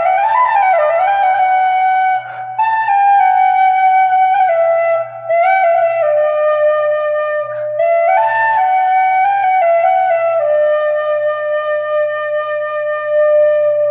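Celtic flute playing a slow, calm melody with small ornamental turns between notes, with brief breath gaps about two and five seconds in. It settles on a long held note near the end. A faint steady low hum sits underneath.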